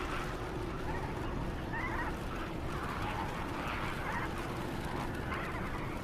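A flock of flamingos calling, with many overlapping calls throughout.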